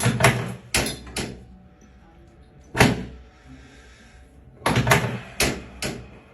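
A series of short thuds and knocks on a chiropractic treatment table during an adjustment, coming in three clusters: four in quick succession at the start, a single one about three seconds in, and another four near the end.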